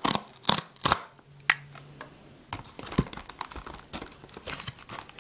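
Cardboard Choco-Pie box being torn open by hand: three sharp tears in the first second, then fainter scratches and crinkles of the cardboard.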